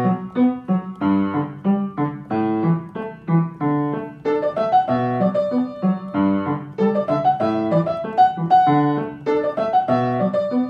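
Background piano music: a steady run of struck notes and chords.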